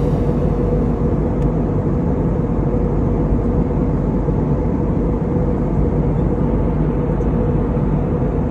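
Steady vehicle noise: a constant low rumble with a steady hum running through it, as from a moving vehicle's engine and road noise.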